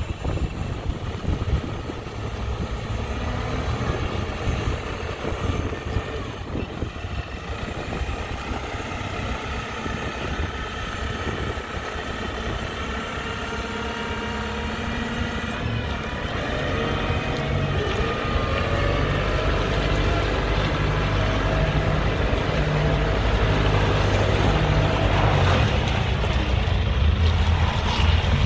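JCB 535-125 telehandler's diesel engine idling steadily. It grows louder and clearer from about halfway through.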